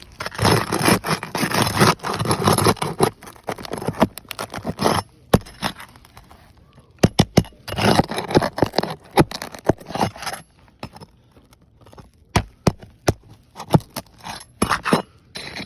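Asphalt roof shingles scraping and crackling as they are lifted, in two long stretches, then a run of separate sharp snaps near the end. The brittle shingles are cracking and losing asphalt as they move.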